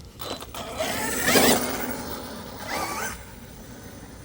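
Electric RC car on a 4S LiPo given two short bursts of throttle: a rising motor whine with mechanical gear and drivetrain clatter. The first burst is the louder one, about a second in; the second comes near three seconds.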